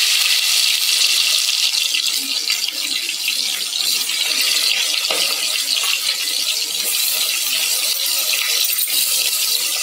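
Cut onions sizzling steadily in hot desi ghee in a pressure cooker, a loud even hiss of frying.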